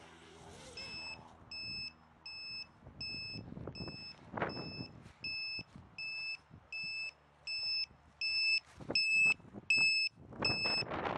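Electronic alarm beeper on the Eachine Falcon 180 FPV quadcopter setup, sounding a steady string of high beeps about every 0.7 seconds once the quad has come down. Near the start the quad's faint motor whine winds down and stops, and a couple of louder bursts of noise come over the beeping.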